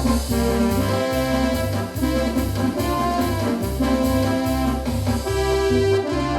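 Yamaha DX7 FM synthesizer playing a brass patch: held brass-like chords and melody notes over a bass line that pulses about twice a second.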